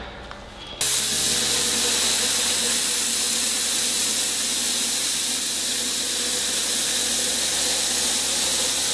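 Hypertherm Powermax30 AIR plasma cutter firing and cutting a hole through thin-wall stainless steel pipe: a loud, steady hiss of the arc and air jet that starts abruptly about a second in and holds even.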